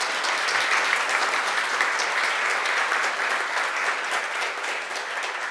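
Audience applauding, a dense, steady clatter of many hands clapping that eases a little near the end.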